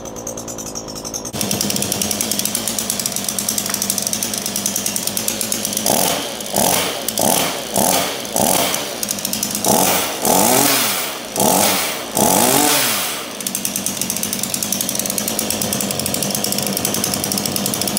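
Titan TTL759CHN two-stroke petrol chainsaw just started from cold, settling into a steady idle about a second in. Between about 6 and 13 seconds the throttle is blipped repeatedly, about eight short revs rising and falling, before it drops back to idle.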